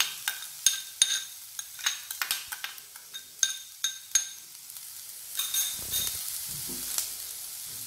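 A quick run of clinks, each with a short ring, as chopped onions are knocked out of a bowl into a hot pan. From about five seconds in, the onions sizzle steadily in the oil with the frying spices.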